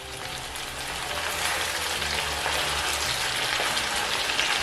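Palm oil and pepper base sizzling steadily in a cooking pot with fish added, the hiss growing a little louder over the first couple of seconds.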